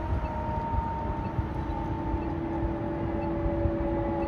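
Distant fire engine siren holding a steady tone with overtones that falls slowly in pitch, over a low rumble of traffic.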